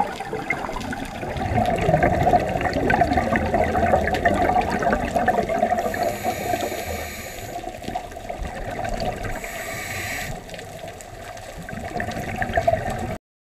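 Underwater water noise with the crackling, gurgling bubble stream of scuba divers' exhaled air, rising and easing, then cutting off abruptly near the end.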